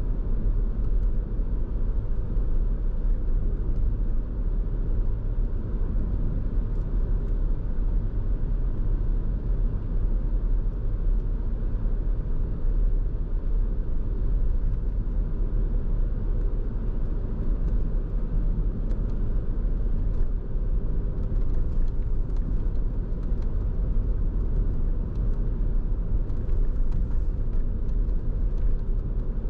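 Steady low rumble of road and engine noise from a car driving at an even speed, heard from the passenger seat.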